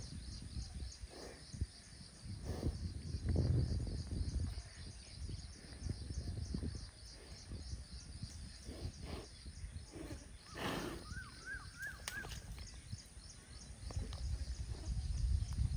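Low, uneven rumble and occasional sloshes of muddy water around a wallowing water buffalo. A fast, even, high-pitched chirping runs through the first half, and a short call of four quick rising chirps comes about eleven seconds in.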